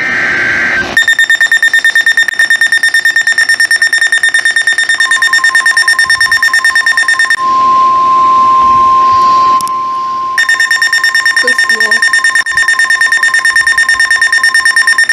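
Emergency alert tones. A SAME data burst ends about a second in, then a rapidly pulsing high electronic alarm beep starts. The steady NOAA Weather Radio warning alarm tone comes in beneath the beeping, plays alone for about three seconds, and then the pulsing beep resumes.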